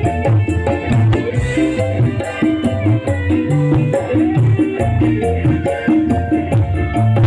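Dangdut koplo drum band music played without vocals: a repeating bass line and held melody notes over a steady drum beat with a shaker-like rattle.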